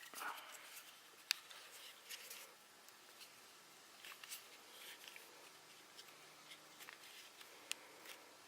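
Faint handling noise: soft rustles and scattered small clicks of fingers pressing textured grip tape onto a polymer pistol frame, with one sharper click a little over a second in.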